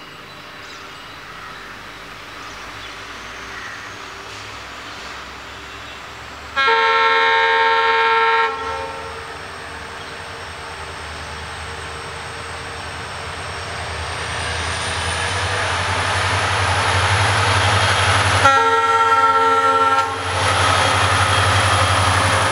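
WDP4D diesel locomotive sounds its horn twice as it approaches hauling a passenger express: a blast of about two seconds a third of the way in, and a shorter one near the end. Between and after the blasts, the engine's deep rumble and the noise of the train swell steadily as it nears and passes.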